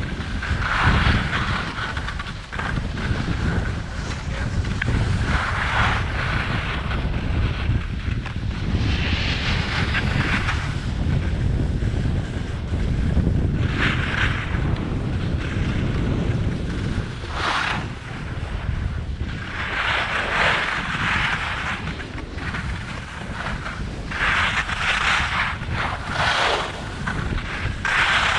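Wind rumbling steadily on an action camera's microphone while riding fast downhill, with a hiss of edges scraping across packed snow every three to four seconds as the rider turns.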